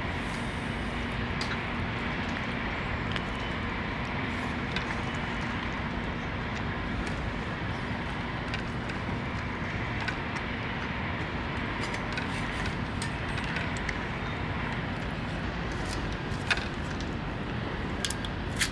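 Domestic cat eating wet cat food from a stainless steel dish at close range: scattered small clicks and smacks of chewing and licking. They sit over a steady outdoor background rumble.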